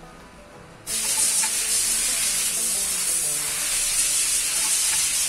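A steady, loud hiss of a pressurised spray aimed at the engine's timing-chain area. It starts abruptly about a second in and lasts about four and a half seconds, over background music.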